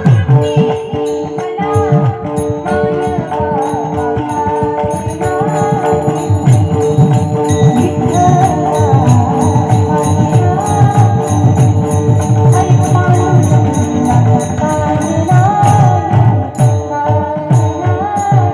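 Kirtan accompaniment: a steady held drone with a wavering melody line over it, fast hand-drum strokes and jingling hand cymbals keeping the beat.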